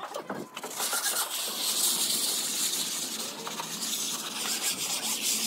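Steady high hiss with a scratchy, rapidly repeating texture from paint being applied to a rendered exterior wall, starting about a second in.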